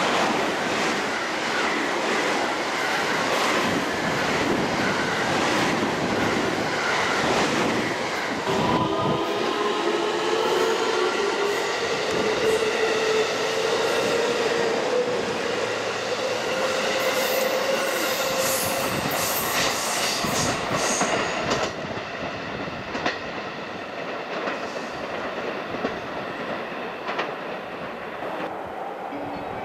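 Electric commuter train running along a station platform with a steady rush of wheel and rail noise; from about eight seconds in, a motor whine climbs slowly in pitch as a train accelerates, then drops away after about twenty seconds.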